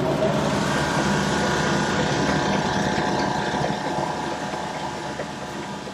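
1941 South Bend 13-inch lathe running with the chuck spinning, a steady mechanical drone from its motor and gearing with many steady tones over a hiss. The tool has not yet touched the work, and the sound eases slightly near the end.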